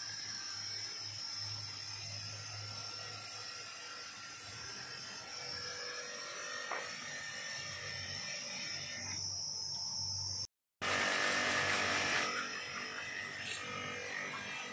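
Electric pressure washer running with a steady hum and high whine while its spray hisses against a car. About two-thirds of the way through, the sound cuts out for a moment, then the spray noise comes back louder for a second or two.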